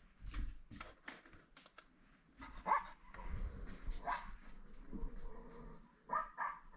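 A dog barking in short single calls, a few times, with light clicks and taps between.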